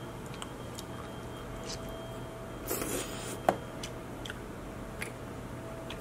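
King crab leg being handled and pulled apart by hand: soft scrapes and clicks of the shell, with a brief crackle about three seconds in and a sharp click just after, over a low steady hum.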